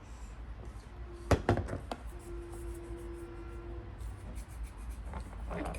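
Plastic Play-Doh playset pieces being handled: one sharp knock about a second in, a few lighter clicks after it, and a short steady hum in the middle.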